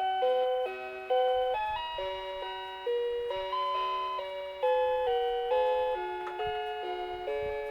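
Seiko Musica QM701P melody alarm clock playing one of its built-in pop tunes as an electronic melody in chords. Its voice is more elaborate than a plain beep. New notes are struck every second or two and fade between.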